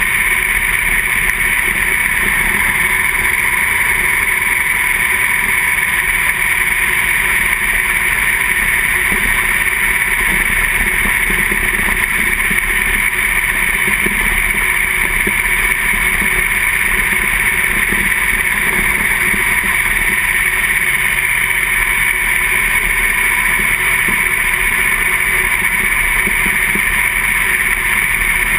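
Two-barrel-carburetted V8 sprint car engine running at racing speed, heard as a steady, loud drone from inside the car.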